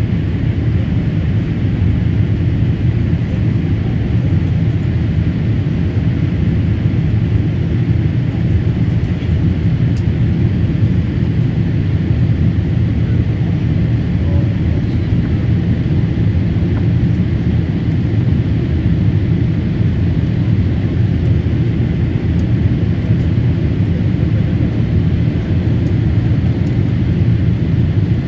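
Steady low rumble of a Boeing 787 Dreamliner's engines and airflow heard from inside the passenger cabin during the climb after takeoff.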